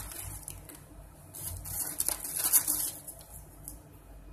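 A hand rummaging through a plastic jar of crispy fried chips, the chips rustling and clattering against each other and the jar, busiest and loudest about halfway through.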